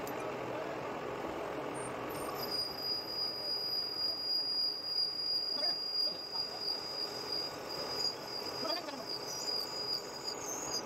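Metal lathe turning aluminum stock: a rough machining noise with a steady high whine that comes in about two seconds in and stops shortly before the end.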